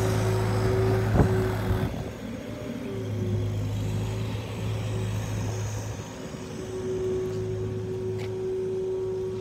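Engine of a ride-on rotary mower with a cab running steadily while the machine drives and turns, with a steady low hum and a higher steady whine; a single knock a little over a second in.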